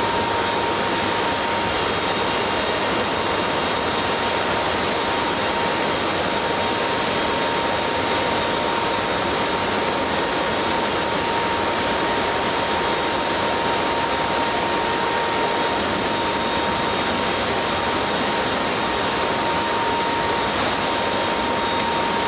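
Steady, loud rush of engine and wind noise inside a military cargo aircraft's hold in flight with the rear ramp open, with a constant whine running through it.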